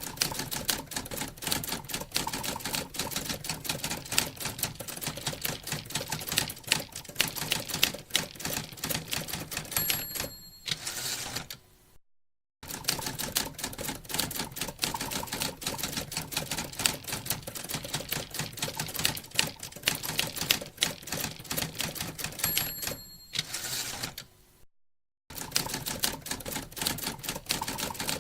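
Typewriter keys striking in fast, uneven runs of clacks. Twice the line-end bell dings and the carriage is returned, then the typing starts again.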